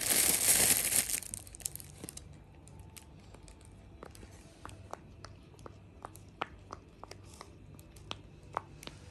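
Loud crinkling of plastic for about a second, then scattered small clicks as silicone pop-it fidget toys are handled.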